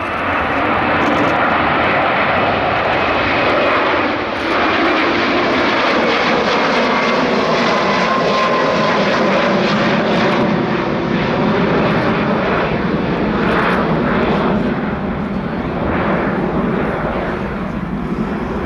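Military jet taking off, its engine noise loud and steady, with faint whining tones that slowly slide in pitch as it passes.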